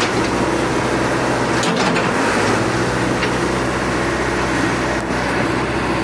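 Diesel engine of a Caterpillar E70B hydraulic excavator running steadily at idle.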